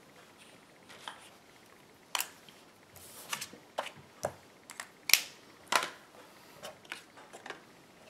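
Clear acrylic stamp block tapped and pressed down onto a paper card on a hard work surface: a run of light clicks and knocks, the two loudest a little past the middle.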